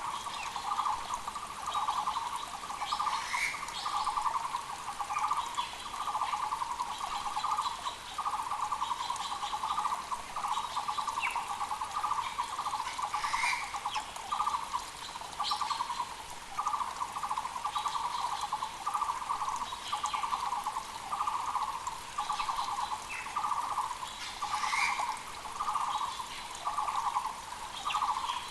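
Muller's barbet (Taiwan barbet) calling, a loud note repeated about once a second, each note a fast trill, with other small birds chirping higher up over the steady rush of a mountain creek.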